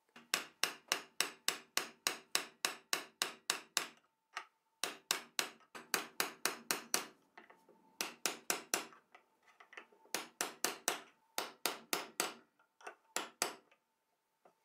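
Hammer tapping a steel eyelet-setting tool, about five quick blows a second in half a dozen runs with short pauses between them, flaring metal eyelets into pre-drilled holes in a thin wooden book cover.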